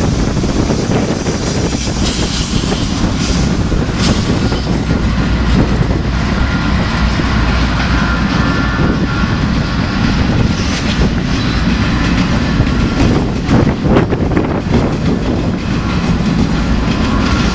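A train rolling past on the rails: loud, steady wheel-and-rail noise with a few short knocks.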